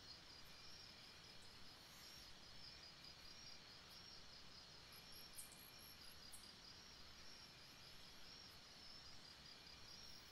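Near silence: faint hiss with a faint, high-pitched, rapidly pulsing tone running through it.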